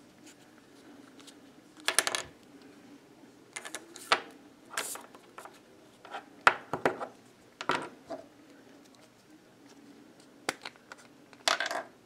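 Felt-tip marker drawing on paper: a series of short scratching strokes, a second or two apart, with near quiet between them.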